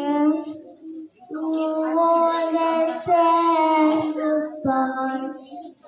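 A young child singing alone, holding long steady notes in three phrases with short breaks between them.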